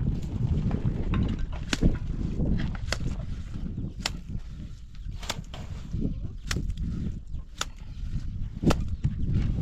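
Sharp knocks repeating about once a second, over a low rumble of wind on the microphone.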